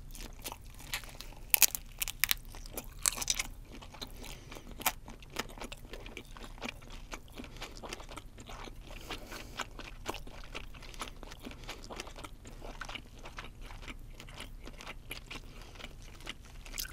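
Close-up crunchy biting and chewing of fried chicken shrimp (Japanese spiny lobster). A few louder crunches come in the first few seconds, then steady crackling chewing follows.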